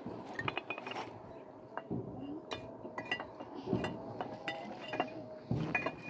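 Kitchenware clinking and knocking as it is handled: a scatter of sharp clicks with a few brief rings.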